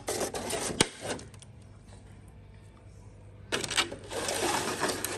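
Clattering handling noise: sharp clicks and rattling with rustle, in two bursts, the second starting about three and a half seconds in and lasting to the end.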